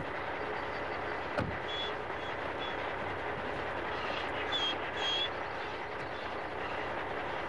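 Steady running noise of an idling semi truck, with a single thump about a second and a half in. Short high chirps come twice, once around two seconds and again around five seconds.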